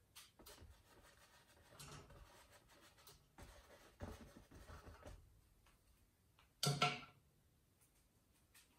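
Faint, irregular scratching of a paintbrush's bristles dabbed and dragged over a wet oil-painted canvas, followed about seven seconds in by a single brief, louder sound.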